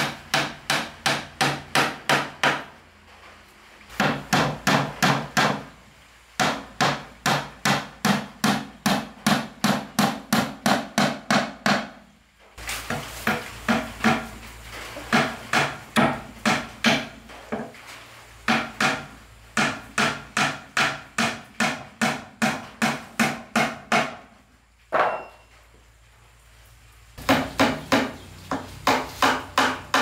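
Hammer striking wood in steady runs of about three blows a second, with short pauses between the runs.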